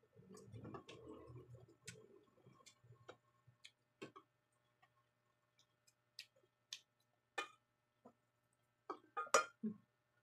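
Faint, irregular clicks and taps with a few light glassy clinks, tableware and cans being handled at a meal table, with the loudest cluster of clicks near the end.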